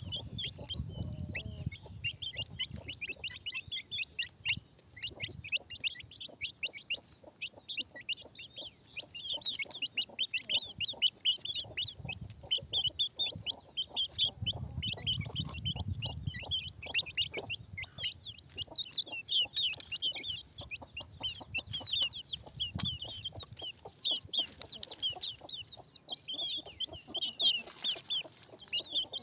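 Domestic chickens clucking and calling, with a dense stream of short high-pitched calls overlapping throughout.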